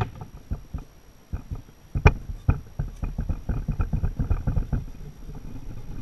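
Metal engine parts being handled on and against a motorcycle crankcase half: a run of irregular clicks and knocks, with a sharp knock about two seconds in and a quick rattle of taps in the second half.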